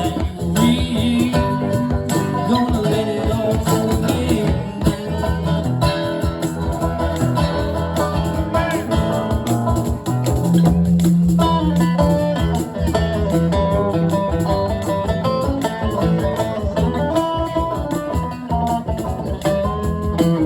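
Live band playing an instrumental passage, guitar to the fore over bass and drums.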